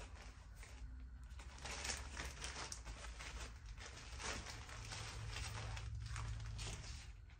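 Clear plastic zip-top shipping bag crinkling and rustling as it is opened and a dress is pulled out of it, over a steady low hum.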